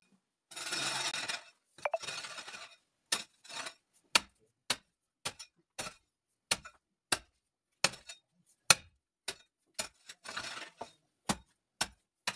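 Hoe chopping into packed earth, with a short thud at each stroke about every half second. Scraping and rustling of soil come first, and again briefly near the end.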